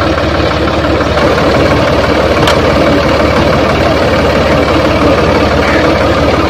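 Fiat 480 tractor's diesel engine running steadily, driving a flat belt off its rear pulley to turn the tubewell pump.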